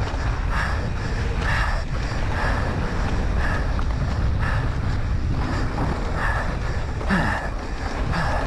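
Wind rushing over the microphone and tyres rumbling on a mountain-bike descent, with the rider's heavy breathing, about one breath a second.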